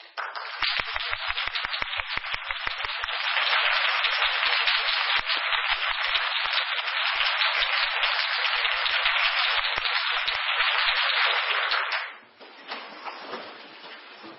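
Audience applauding: many overlapping claps, louder after a few seconds, then dropping off abruptly about twelve seconds in.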